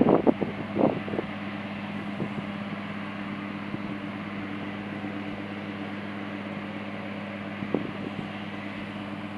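Airbus A320 jet engines running at taxi power, a steady low hum with a rushing haze, under wind noise on the microphone. A flurry of sharp knocks or wind buffets comes in the first second, with one more near the end.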